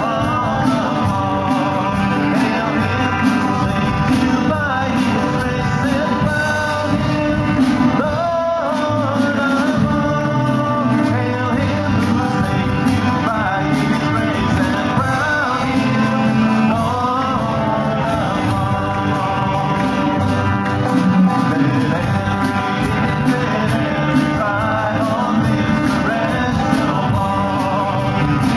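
Live worship band playing a song: several singers at microphones, women's voices prominent, over electric bass guitar, drums with cymbals and acoustic guitar.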